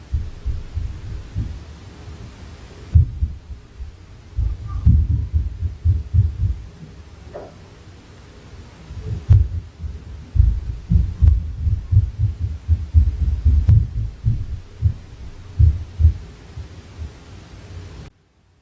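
Inter-floor impact noise: heavy footsteps and thuds from the flat upstairs, heard through the ceiling as deep, irregular thumps that come in quick runs with short pauses. The sound cuts off abruptly near the end.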